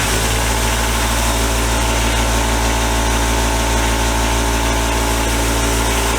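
Electric bench power tool running at a steady speed, with a strong low motor hum and an even whirr.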